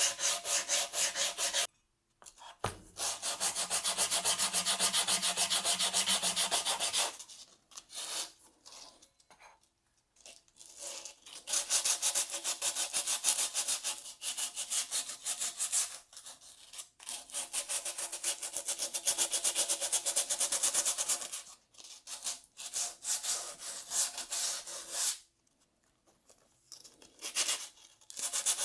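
Sandpaper rubbed by hand over a rusty snowmobile exhaust in quick back-and-forth strokes, in several bouts broken by short pauses.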